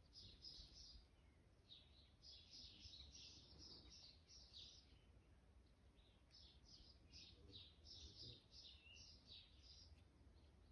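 Faint small songbirds chirping in quick runs of short, high notes, with a pause in the middle.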